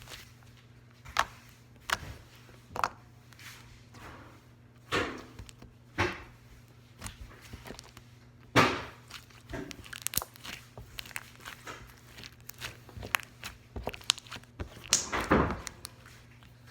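Slime being squished and stretched by hand, with irregular sharp pops and clicks.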